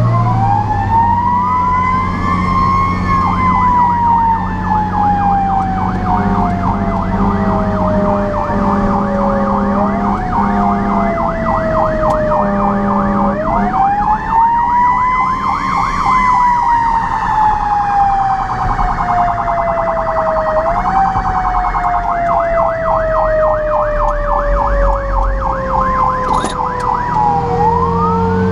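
Fire apparatus sirens on an emergency run: a wail that rises and then falls slowly, restarting several times, with a fast pulsing yelp over it for long stretches, above the steady low drone of the truck's engine.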